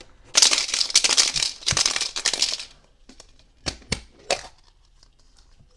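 Plastic wrapping crinkling and crackling for about two and a half seconds as a toy surprise egg is unwrapped, followed by a few sharp plastic clicks as it is opened.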